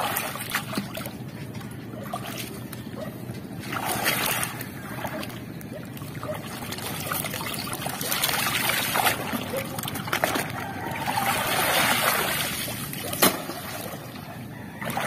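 Shallow seawater splashing and sloshing as hands rummage under the surface and haul up a clump of oysters, water pouring and dribbling off it in several surges. There are a few sharp knocks, the clearest near the end.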